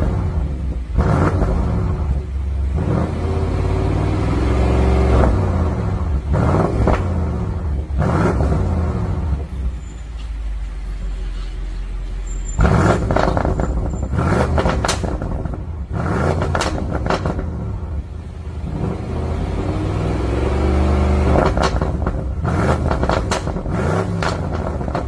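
BMW M550i's twin-turbo V8 revved repeatedly at a standstill through a Brillante valved exhaust, each rev rising and falling in pitch. For the first half the exhaust valves are closed (Comfort mode). After a short lull, about halfway through, the revs resume with the valves open (Sport+ mode).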